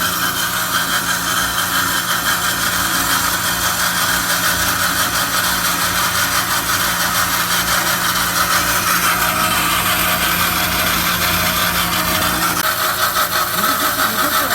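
MEP PH261-1HB band saw running steadily, its electric motor driving the blade through thin-walled 75 x 75 mm square tube with 1.6 mm wall. A low hum within the noise drops out near the end.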